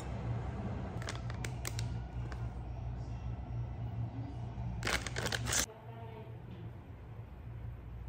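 A few light clicks of chopsticks on tableware over a steady low hum, then about five seconds in a plastic bag of shredded nori crinkles briefly as it is shaken over a bowl, and the hum drops away just after.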